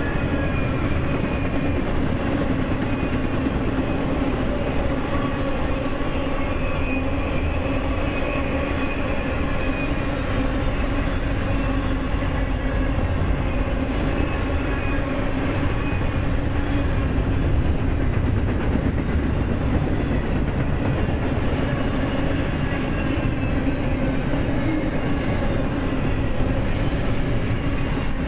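Double-stack intermodal freight train's container-laden well cars rolling past, steel wheels running on the rails in a steady, unbroken noise.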